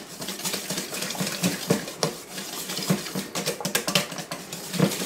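Wire whisk beating a thin, wet flour-and-yeast batter in a stainless steel mixing bowl, its wires clicking and scraping against the metal sides in a quick, uneven run of strokes.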